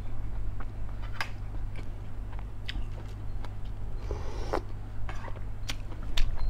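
Close-up sounds of a person eating chicken in broth: wet chewing and lip smacks with scattered short clicks, and a short slurp about four seconds in as a spoonful goes to the mouth.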